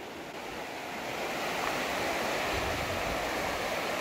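A river rushing steadily, the sound of running water growing louder about a second in. A brief low rumble comes in about two and a half seconds in.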